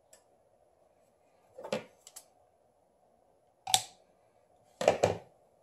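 Handling noise: a handful of short taps and clicks as fingers press thin adhesive tape onto a phone's metal mid-frame on a wooden board, the loudest two close together near the end, over a faint steady hum.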